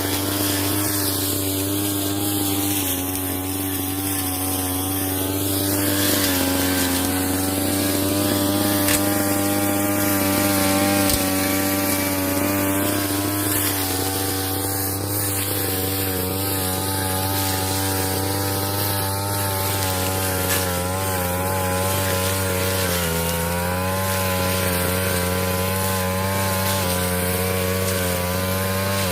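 Petrol brush cutter engine running at high revs while mowing cogon grass, its pitch shifting slightly a few times.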